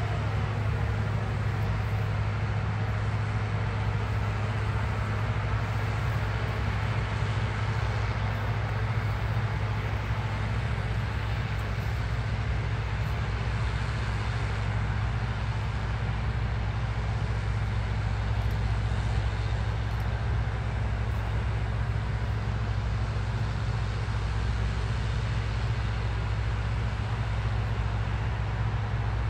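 New Holland combine harvester running steadily while harvesting wheat: a constant low engine and threshing hum that holds the same level throughout.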